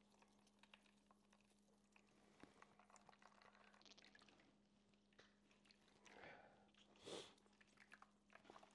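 Near silence with a faint steady low hum, and a couple of faint wet squelches in the second half as a cheesecloth bundle of blended yogurt, onion, garlic and ginger is squeezed by gloved hands.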